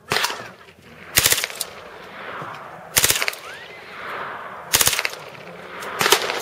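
Belt-fed AR-style rifle firing five short bursts of automatic fire, one about every one and a half seconds.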